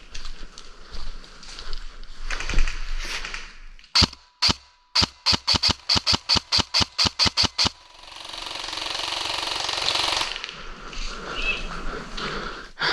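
Airsoft guns firing: two sharp shots about four seconds in, then a steady string of about fourteen shots at about five a second, the burst that shoots up an opposing player. A rush of noise swells up and stops after it.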